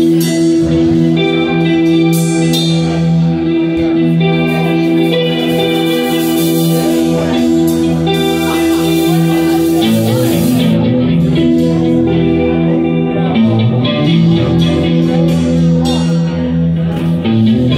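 A live band playing electric guitar and bass guitar, with long held chords that change about ten seconds in.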